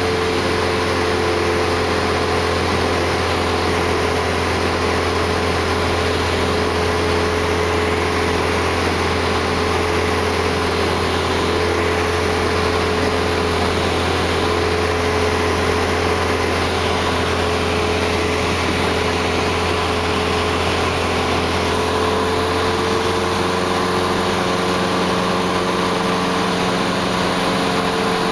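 High-wing light aircraft's piston engine and propeller droning steadily, heard from inside the cabin with a rush of air noise. Its tone shifts slightly about two-thirds of the way through.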